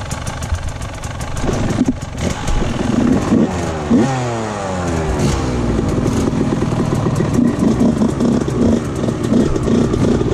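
Motocross bike engine idling, then revving up from about a second and a half in, its pitch rising and falling through the gears as the bike pulls away, then running on steadily.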